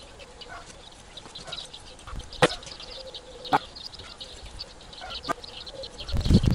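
Small birds chirping, with poultry calling in the background. Three sharp clicks stand out, and a low rumble comes near the end.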